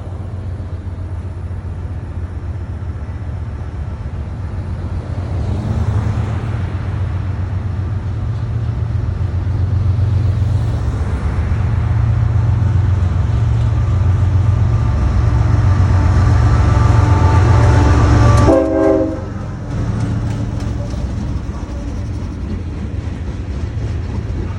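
CSX freight train's diesel locomotives approaching with a steady low engine hum that grows louder, the air horn sounding as they draw near. About three-quarters of the way through, the horn and engine noise drop off suddenly as the locomotives pass, leaving the rumble and clicking of freight cars rolling by.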